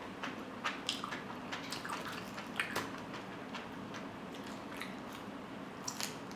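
A person chewing and eating a meat wrap close to the microphone: a run of short, irregular wet clicks.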